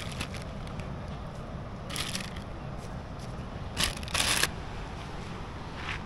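Plastic packaging crinkling in short bursts, once about two seconds in and twice around the four-second mark, the last the loudest, as lettuce leaves are handled. A steady low rumble runs underneath.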